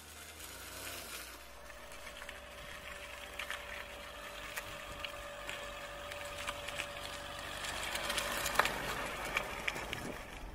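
A Hyundai Verna sedan driving slowly past on a rough, stony road, its tyres crunching and flicking loose stones with scattered clicks, over a steady engine hum that stops near the end. The sound grows louder as the car comes close.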